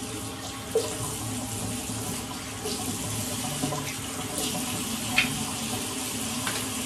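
Bathroom tap running steadily into the sink, with a few short knocks along the way.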